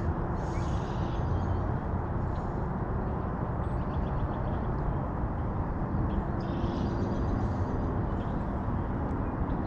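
Steady outdoor background noise, an even rumbling hiss without distinct events.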